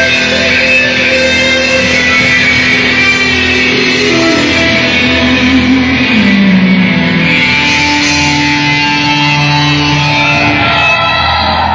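Live rock band playing an instrumental passage: electric guitars carry the lead with long held notes and a falling, sliding run about halfway through, over the rest of the band.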